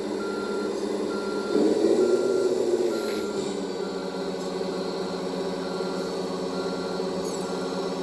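Sound module of an RC MAN truck playing reversing beeps, a steady single tone pulsing about once a second, over a simulated diesel engine running, which swells as if revving from about a second and a half in and settles again around three and a half seconds in.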